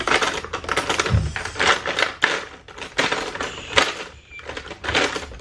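Makeup brushes and other small hard items clattering and clicking as they are rummaged through, a fast irregular run of light knocks.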